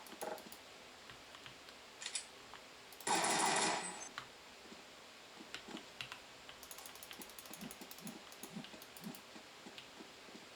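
Typing on a Drop CSTM80 mechanical keyboard with linear Gateron Milky Yellow KS3 switches: scattered keystroke clacks, in a denser run a little past the middle. A louder sound lasting about a second comes about three seconds in.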